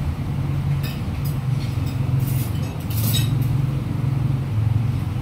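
Engine of a large road vehicle running on the street, a steady low rumble that wavers in strength. A few light clinks of cutlery on plates come about a second in and again around two and three seconds in.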